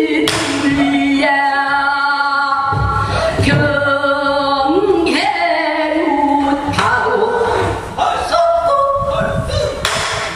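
A female pansori singer singing in full voice, with long held notes that shake with a wide vibrato and slide up and down between pitches.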